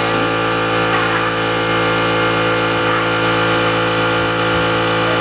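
A machine motor running steadily, giving an even hum made of many steady tones with no change in speed or level.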